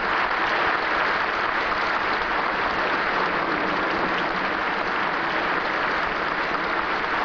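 Audience applauding steadily: dense, even clapping with no voice over it.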